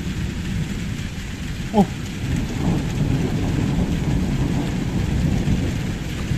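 Heavy rain falling steadily, with thunder rumbling low and swelling from about two and a half seconds in. About two seconds in, a brief high sound drops quickly in pitch.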